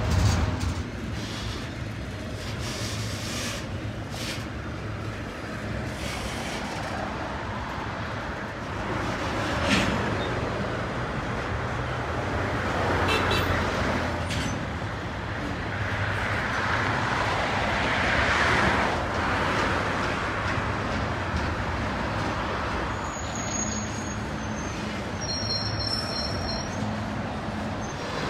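Double-stack container freight train rolling past, a steady rumble of the cars on the rails with scattered clanks and knocks and a swell about two-thirds of the way through. A couple of brief high squeals near the end.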